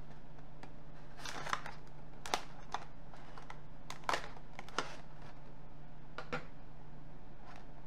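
Clear plastic packaging being cut and pried open with scissors: scattered crinkles and sharp clicks as taped plastic and snap fastenings give way, over a steady low hum.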